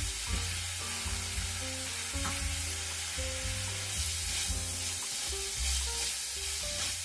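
Thin lamb slices sizzling in a frying pan as they are tossed and stir-fried with chopsticks. Background music with short melody notes and a bass line plays underneath.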